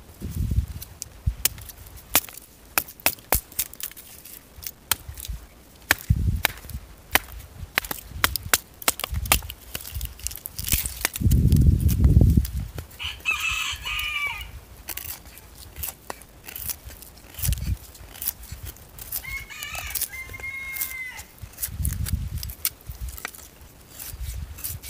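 Fixed-blade knife shaving and splitting dry wood for kindling: a steady run of sharp cuts and cracks, with dull knocks of the wood on stone. A bird's crowing call comes in about halfway through, and a shorter call follows some six seconds later.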